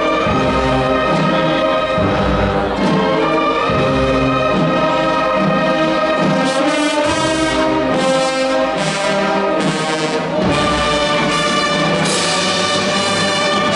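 Brass band playing, with trombones and trumpets carrying sustained, stepwise-moving notes.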